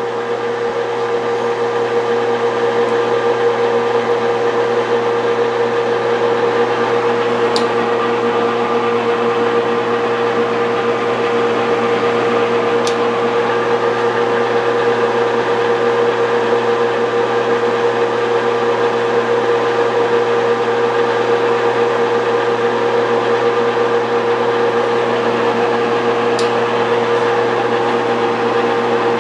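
Metal lathe running with the carriage under fast power feed, turning a taper dry: a steady motor-and-gear hum with one strong pitch, with three faint ticks scattered through it.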